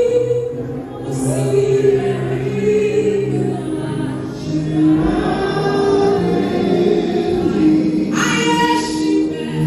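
Women's choir singing a gospel hymn together, with long held notes.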